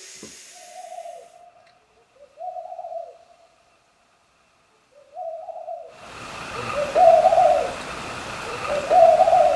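Five hollow hooting notes, each about a second long and at nearly the same pitch, spaced unevenly. A steady hiss comes in under them from about six seconds in.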